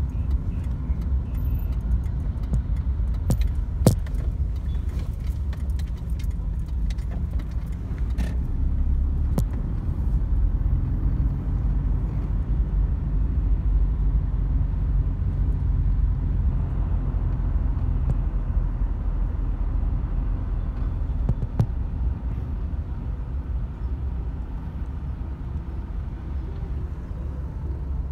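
Car driving, heard from inside the cabin: a steady low rumble of engine and road, with a few sharp clicks or rattles, the loudest about four seconds in.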